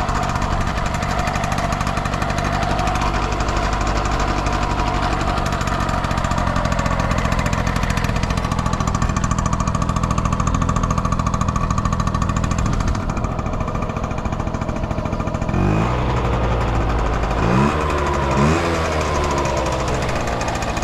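Yamaha Passol's 50cc two-stroke scooter engine running steadily, then revved up and let fall back a couple of times near the end. It revs up cleanly with no abnormal noise, as the seller presents it.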